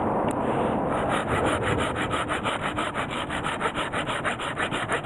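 Hand saw cutting through firewood in fast, even back-and-forth strokes, starting about a second in.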